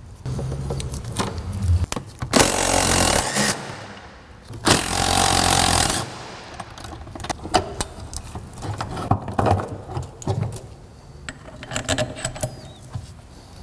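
Two bursts of a pneumatic impact wrench, each about a second long, a couple of seconds apart, followed by scattered metallic clinks and clanks of tools and parts being handled.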